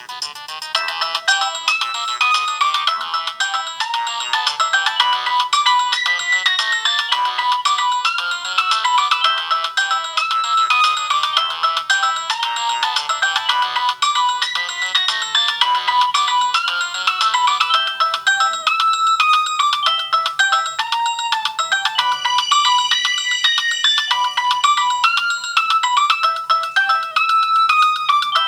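A Samsung SGH-A157 flip phone's loudspeaker playing a downloaded Nokia polyphonic ringtone: a quick, stepping electronic melody in several voices at once, thin, with little bass. The texture thins slightly about two-thirds of the way through.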